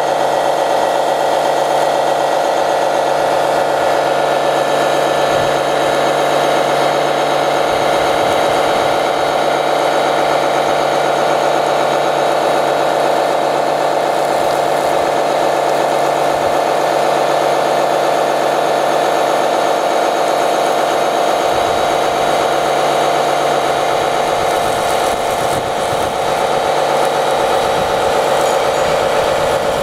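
Small electric water pump motors of radio-controlled model fire trucks running with a steady whine as their roof monitors spray foam and water.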